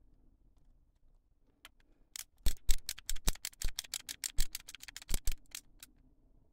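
Plastic model-kit parts clicking and snapping while a Bandai Perfect Grade Zeta Gundam is being assembled: a quick run of about two dozen sharp clicks. It starts about two seconds in and stops near the end.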